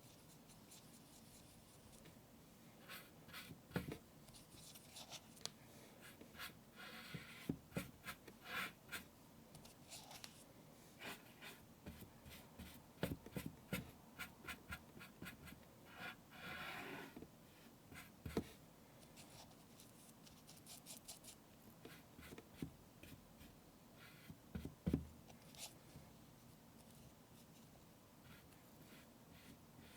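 Quiet drawing or painting strokes on an Anpanman toy's face, short and scratchy, mixed with scattered light clicks and taps as the toy and drawing tools are handled.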